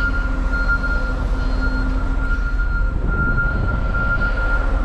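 Semi-truck's diesel engine running with a steady low rumble, a thin steady high whine over it.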